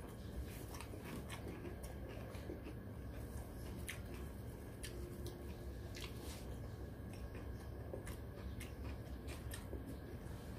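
Eating sounds: chewing and biting, with scattered short clicks and crunches, over a steady low background hum.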